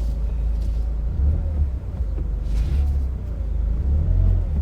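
Car running on the road, heard from inside: a steady low drone of engine and tyres.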